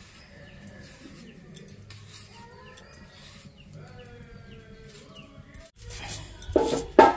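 Faint clucking of domestic chickens in the background, with a few louder short sounds near the end.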